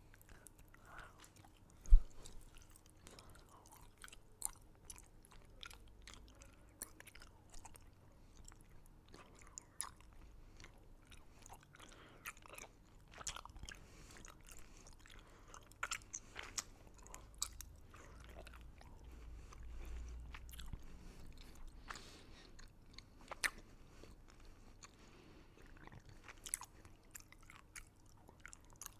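Close-miked chewing and biting of crunchy candy: irregular crisp crunches and clicks throughout, with one sharp thump about two seconds in.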